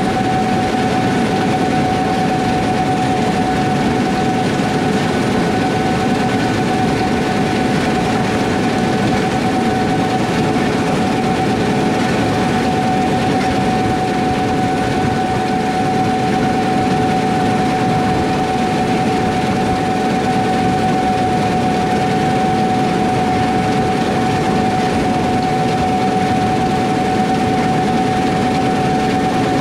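Combine harvester running steadily under load, a constant mechanical rumble with a steady high whine over it.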